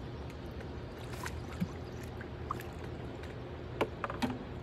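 Steady low hum of a boat's motor, with a few short splashes and clicks as a hooked catfish is fought and drawn up alongside the boat.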